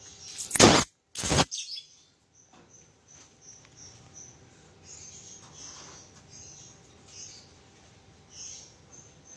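Two sudden loud noises in the first second and a half, then faint, short high chirps and squeaks scattered throughout, from the small animals in a birdcage holding a parakeet and a mouse.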